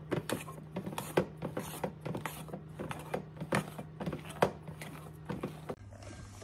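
Spatula folding melted chocolate into meringue in a stainless steel bowl: a quick, irregular run of scrapes and clicks against the steel with soft squelches, stopping about a second before the end.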